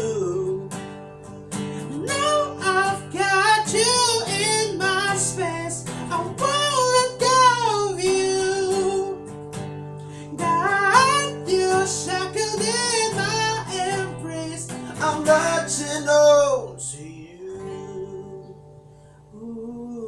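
A man singing with sliding, bending vocal runs over a strummed acoustic guitar. Near the end the voice stops and the guitar plays on alone, more quietly.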